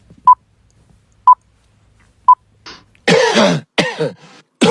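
Three short high beeps, evenly spaced a second apart, then a person coughing loudly a few times from about three seconds in.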